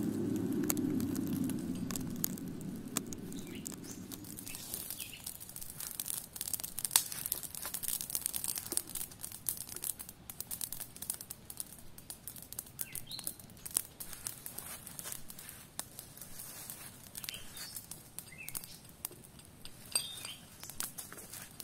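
Wood campfire crackling, with many sharp irregular pops and snaps. A low rumble fades out over the first few seconds, and a few short bird chirps come here and there.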